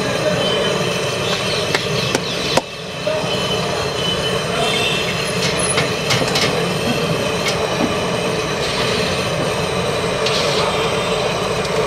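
Steady kitchen noise of a frying stall, a continuous rumble and hiss, with a few light metal clinks about two seconds in and a sudden brief drop in level just after.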